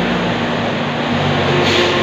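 Steady, loud din of machinery in a woodworking plant, with a brief hiss about one and a half seconds in.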